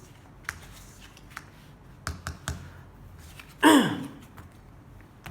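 Light clicks and taps of playing cards being slid from a baccarat shoe and turned over on the table. A little past the middle comes one short, loud sound that falls steeply in pitch.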